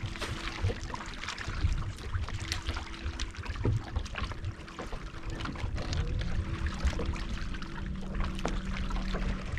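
Water trickling and splashing around a fishing boat, with small clicks and a steady hum; a second, lower hum comes in about six seconds in.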